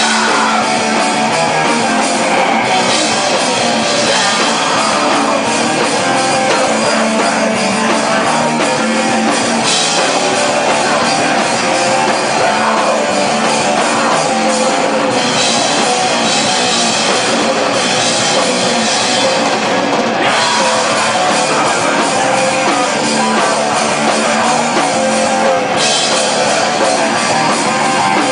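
Hardcore rock band playing live: distorted electric guitar over a pounding drum kit, loud and dense, the bright top end swelling and dropping back several times.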